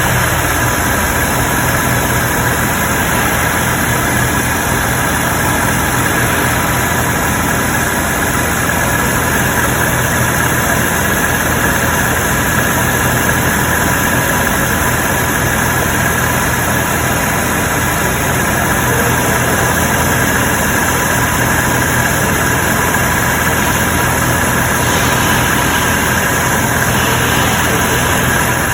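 BMW 650i's 4.8-litre N62 V8 idling steadily, warmed up after several minutes of running.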